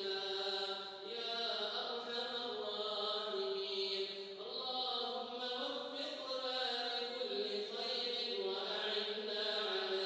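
Quran recitation: a male reciter chanting in long, drawn-out melodic phrases, each held note gliding slowly, with short breaks between phrases.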